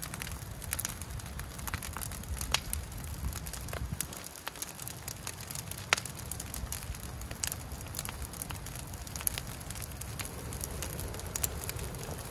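Brush-pile bonfire of branches and green boughs crackling, with irregular sharp pops over a low rumble. The loudest pop comes about six seconds in.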